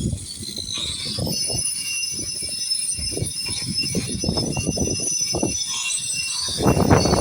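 Power grinder grinding paint off a concrete foundation: a steady high motor whine over rough, uneven grinding that surges louder near the end.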